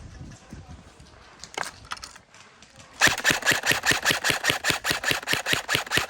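Airsoft gun firing a long full-auto burst of about three seconds, roughly nine shots a second, starting about three seconds in. Two single sharp clicks come a little before it.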